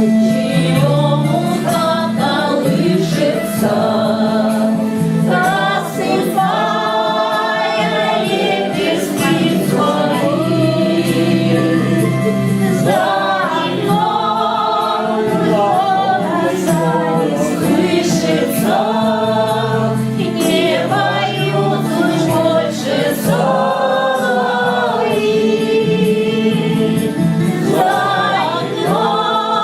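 A group of voices singing a Russian song together, with sung lines rising and falling over steady low held accompaniment notes.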